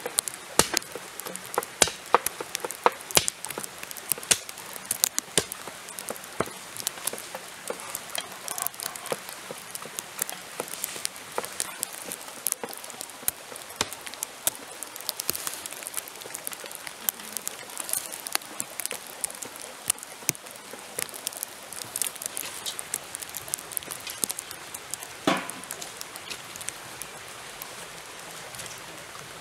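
Light rain pattering on fallen leaves and wood: a dense, irregular run of small ticks and drips over a soft hiss. About 25 seconds in comes a single louder knock with a brief metallic ring.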